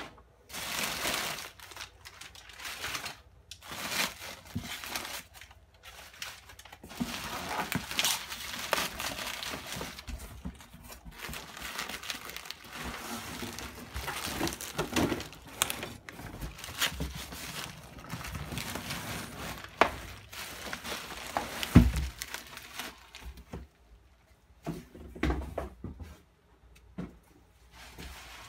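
Crumpled newspaper packing and bubble wrap rustling and crinkling as they are pulled out of a cardboard box, in irregular handfuls. A single sharp thump about three quarters of the way through is the loudest sound.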